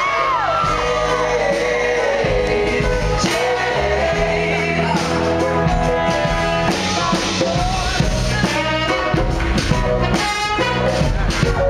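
Live band performance of a pop song with a lead singer and full band playing, recorded from the audience.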